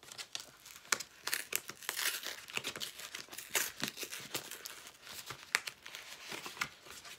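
A brown paper mailer being handled and pried open, the paper crinkling and crackling with many quick, irregular clicks and some tearing.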